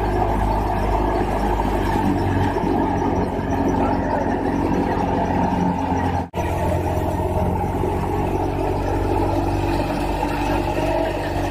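Tractor-driven wheat thresher running steadily: the tractor engine drones and the belt-driven threshing drum whirs as wheat is fed through. The sound cuts out for a split second about six seconds in.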